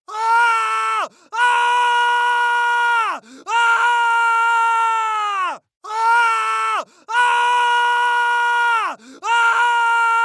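Sound-effect screams of pain: a high, held human scream repeated about six times, each holding one pitch and then dropping off at the end, with short breaks between.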